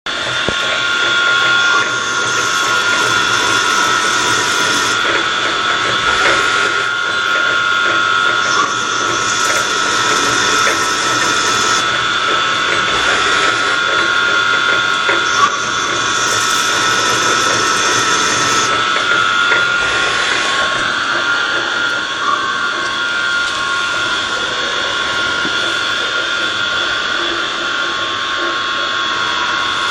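CNC lathe running while it cuts a variable-pitch, round-profile thread, a steady machine whine over cutting noise. A higher hiss comes and goes in passes of a few seconds.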